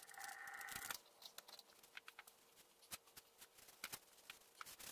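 Cloth rag rubbing over the metal of a surface grinder, stopping about a second in. Faint rustles and light taps follow as the rag is moved around.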